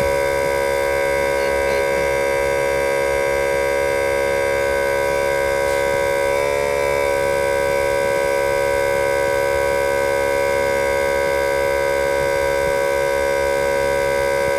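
Air compressor running steadily while it inflates a car tyre, giving a loud, even motor whine whose pitch dips briefly about halfway through.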